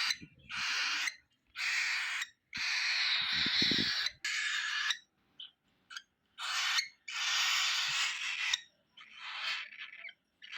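Baby cockatiel food-begging: a run of about eight harsh, raspy calls, each lasting from half a second to over a second, with short pauses between them.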